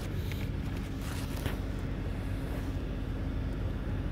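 2013 Dodge Avenger engine running steadily just after a cold start, heard from inside the cabin, with a few light handling clicks.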